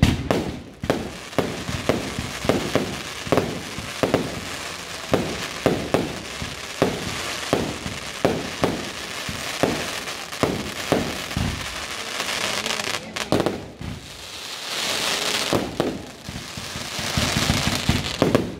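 Aerial fireworks display: a rapid series of shell bursts, about two bangs a second, each with a short echoing tail. Past the middle the bangs thin out into a few seconds of dense hissing crackle, and the rapid bangs return near the end.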